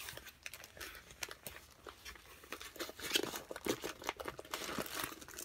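A rolled diamond painting canvas with its clear plastic cover rustling and crinkling as it is handled and unrolled, in many small irregular crackles.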